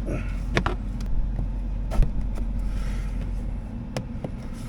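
A few separate metallic clicks and knocks from a wrench and 10 mm bolts being worked on a car's center console mounting, over a steady low hum.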